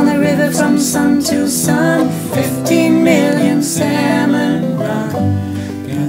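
Acoustic guitars and a banjo playing an instrumental break of an old-time folk song, with a sliding lead melody over steady strummed chords.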